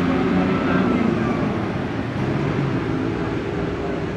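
Crowd of spectators cheering, with shouting voices over the noise of a cycle race, as mixed in an anime soundtrack.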